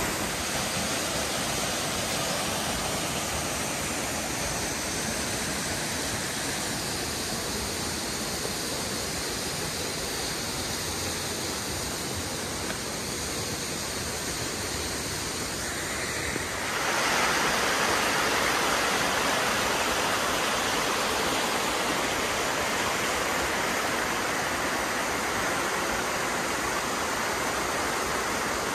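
Steady rush of water from a mountain stream and waterfall. About 17 s in it grows louder and brighter.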